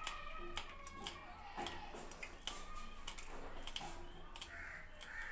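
Knife slicing green chillies held in the hand, small pieces dropping onto a steel plate: a run of irregular light clicks and ticks.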